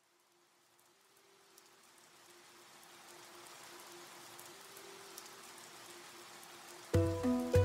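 A soft, rain-like hiss fades in slowly with a faint held note under it. Near the end, music with a low bass and chords cuts in.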